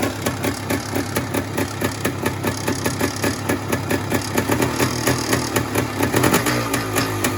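Yamaha DT 400 MX two-stroke single engine idling with a regular pulsing beat of about four or five a second, briefly louder about six seconds in. It has a light knock at idle, which the owner puts down to a tired, worn top end.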